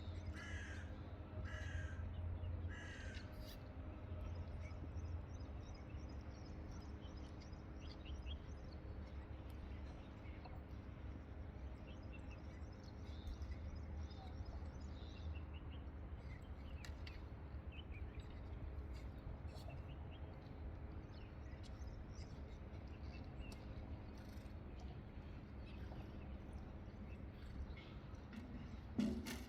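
A bird gives three harsh, caw-like calls about a second apart, over a steady low hum of outdoor background. A short louder low sound comes near the end.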